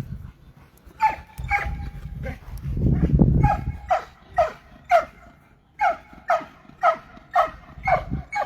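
A dog barking repeatedly in short, sharp, high-pitched barks, about two a second, starting about a second in. A low rumble sits under the barking for a moment around the middle.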